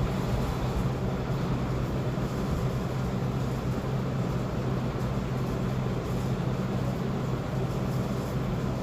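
Steady whirring hum and air rush of an electric blower fan running continuously.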